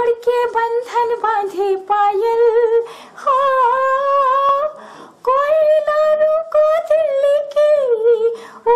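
A woman singing unaccompanied in a high voice, in phrases of short notes and long held notes with a slight wobble. She breaks briefly for breath about three and five seconds in, and near the end a held note slides down.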